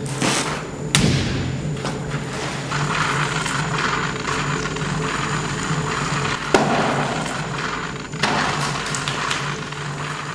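Workshop sound of a large potter's wheel being worked: wet clay lumps slapped and pressed onto the spinning clay by hand, with a few heavy thuds over a steady hum.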